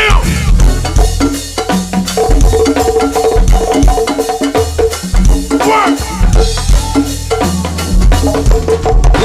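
Live go-go band playing an instrumental groove: a drum kit with snare and rimshots driving a steady bass line and percussion, with keyboard chords on top.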